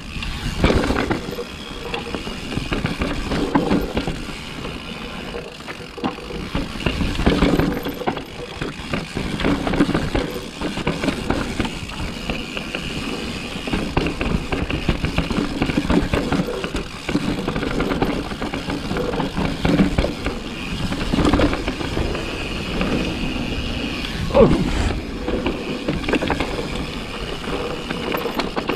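Propain Tyee downhill mountain bike ridden down a dirt trail: continuous tyre noise over dirt, roots and stones, with knocks and rattles from the bike over bumps. A brief falling tone near the end is the loudest moment.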